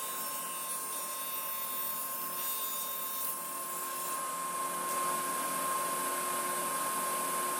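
Powermatic table saw running freely at speed, a steady whine over a hiss, before any cut is made.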